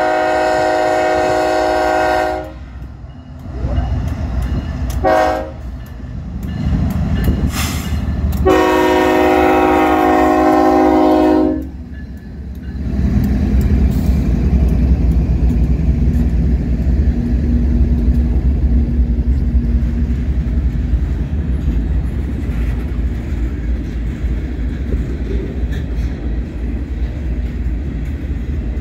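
BNSF GE ES44 freight locomotives sounding a multi-chime air horn: a long blast ending about two seconds in, a short one about five seconds in, and another long one from about eight and a half to eleven and a half seconds. This long-short-long close is the standard grade-crossing signal. Then the locomotives' diesel engines pass close by, followed by the steady rolling rumble of freight cars on the rails.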